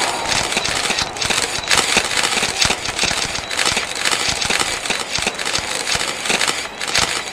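Many camera shutters clicking at once in a dense, continuous rattle of clicks, thinning out near the end.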